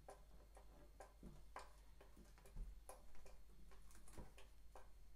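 Faint, irregular clicks and ticks of metal plumbing fittings being handled and unscrewed by hand on a toilet's angle valve, with a couple of light knocks.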